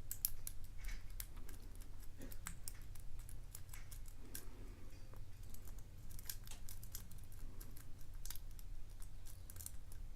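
Lock pick and tension wrench working the pin stack of a custom-pinned padlock: many small, irregular clicks and ticks as pins are lifted and set, over a steady low hum.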